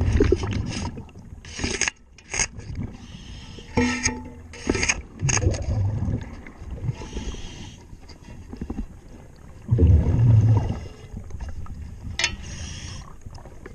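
Diver's hull-cleaning tool scraping and brushing a yacht's underwater hull, heard underwater in short irregular strokes. Deep rumbles of exhaled scuba bubbles come about every five seconds, with short hisses of breathing from the regulator in between.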